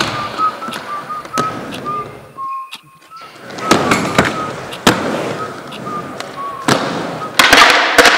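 Skateboard wheels rolling over concrete and ramps, broken by sharp clacks and thuds of the board; the rolling swells loudest about four seconds in and again near the end. A tune of short whistled notes runs over it.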